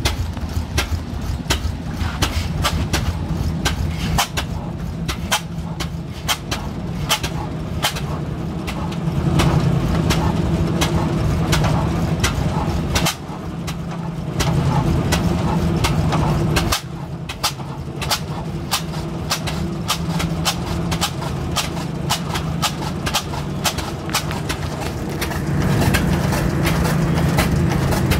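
Vintage stationary engine with large spoked flywheels running, its firing beats coming as a steady rapid knock several times a second over a low hum, louder in stretches.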